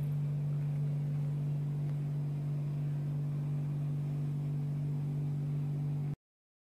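Steady low hum, even in level throughout, that cuts off abruptly about six seconds in.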